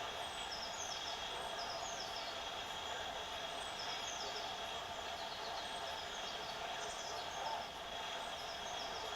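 Steady hiss, with faint short falling chirps repeating every second or so.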